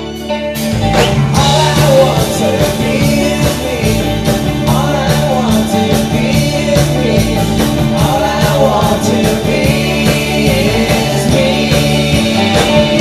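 Live rock band playing: electric guitars and drums with a lead voice singing. A held, ringing guitar chord gives way under a second in to the full band with a steady drum beat and vocals.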